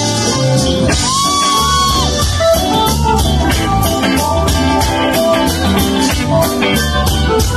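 Live band playing a song, with a steady drum beat under keyboard and guitar, recorded from the audience.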